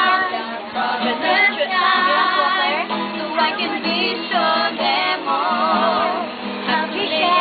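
A group of people singing together, with wavering held notes.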